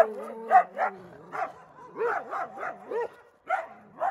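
Several street dogs barking in repeated, overlapping bouts, some calls arching up and down in pitch like yelps. Territorial barking, seemingly rival packs coming over to probe each other's territory.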